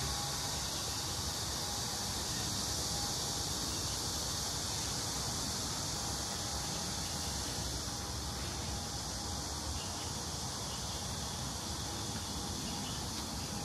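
Steady outdoor background: a constant high-pitched hiss over a low rumble, easing slightly about two-thirds of the way through.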